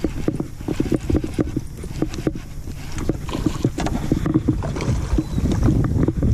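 Choppy water lapping and slapping against a boat's hull, heard as a run of irregular low knocks, with wind on the microphone.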